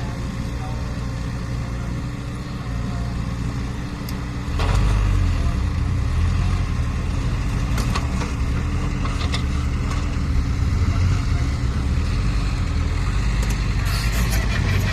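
Caterpillar 307E mini excavator's diesel engine running steadily, getting louder about four and a half seconds in and holding there, with a few faint clicks.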